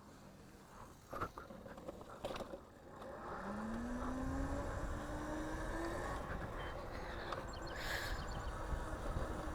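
Two short clicks, then the electric motor of a modded Razor scooter running with a steady rush of wind and road noise. The motor's whine rises in pitch as it speeds up over about three seconds, then holds steady.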